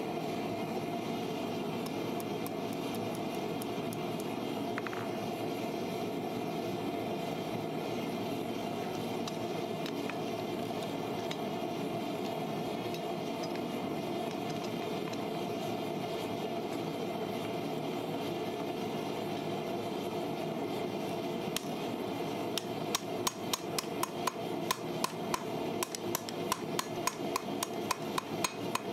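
Hand hammer striking red-hot steel on an anvil in a quick, regular run of light blows, several a second, beginning about three quarters of the way through. The steel is a snake being forged from an old farrier's rasp. A steady rushing noise runs underneath throughout.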